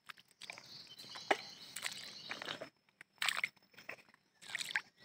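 Irregular rustling and crunching with scattered sharp clicks. The loudest is a crack about a second in, and a flurry of crunches comes near the end.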